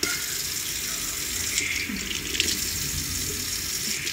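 Kitchen sink faucet coming on suddenly and running steadily, its stream splashing over a wet Shih Tzu puppy and into the sink: the final rinse of the puppy's bath.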